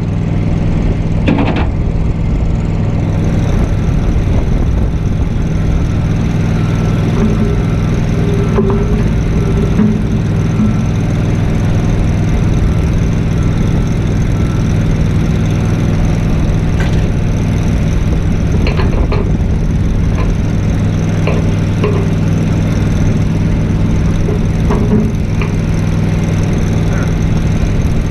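An engine running steadily at constant speed. It picks up over the first second, then holds an even hum, with scattered sharp clicks over it.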